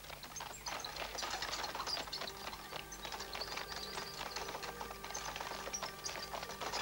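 Horse-drawn wheeled wooden plough working through soil: a dense, irregular clatter and crunching over a steady low hum.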